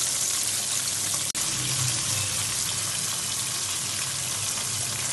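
Flour-coated boneless fish fillet deep-frying in hot oil in a pan: a steady sizzle, with a brief break just over a second in.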